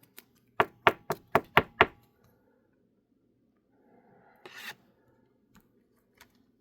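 Six quick taps on a tabletop, about four a second, as trading cards in their plastic holders are handled. A short rustle of card or plastic sliding follows later.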